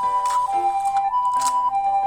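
Japanese-style two-tone ambulance siren going 'pee-poh': a higher tone and a lower tone alternate, each held about half a second. It plays over background music with light clicks.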